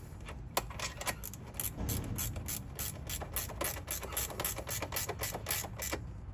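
Ratcheting combination wrench clicking as it tightens the nut on a battery terminal post: a fast, slightly uneven run of sharp ratchet clicks that stops just before the end.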